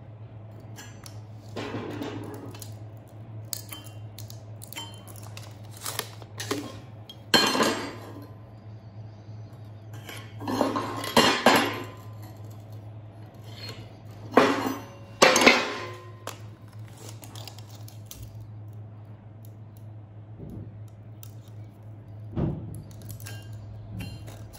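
Steel parts and tools clanking and scraping against each other in short bursts, several times, over a steady low hum.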